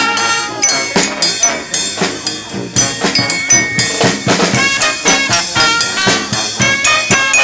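Brass band music with drums: horns playing held notes over a steady drum beat.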